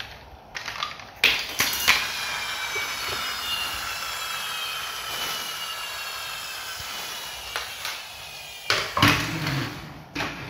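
Battery-operated toy airliner's electronic jet sound effect: a steady whoosh with whining tones that slowly fall in pitch, starting after a click about a second in and stopping about seven seconds later. Hard plastic knocks and clatter as the toy is handled and set down near the end.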